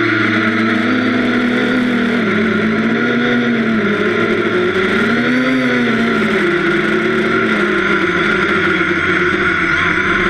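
Quadcopter's brushless motors and propellers heard from a camera on its frame: a steady buzzing whine, with a lower hum that rises and falls back in pitch twice, about three and about five and a half seconds in.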